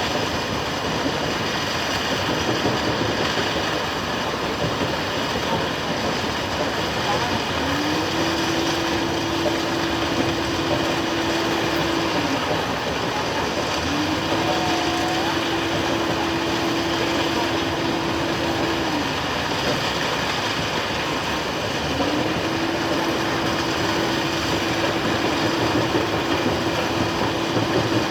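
Excavator running with a steady, loud engine noise. Over it a whine rises, holds for about four seconds and drops away, three times.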